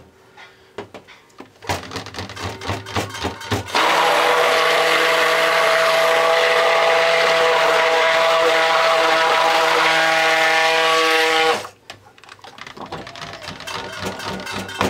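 Cuisinart stick blender running steadily for about eight seconds in a plastic pitcher, mixing colorant into cold-process soap batter, then cutting off suddenly. Before and after the run come scattered light knocks and clatter.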